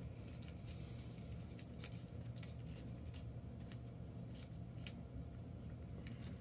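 Faint, uneven clicks and scrapes of a small plastic spoon stirring Popin' Cookin' candy-kit dough in a little plastic cup, over a steady low hum.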